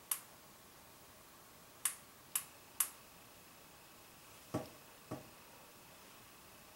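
Push button on a Vont Spark LED headlamp clicking as it is pressed through its light modes: four sharp clicks in the first three seconds, then two duller clicks about half a second apart.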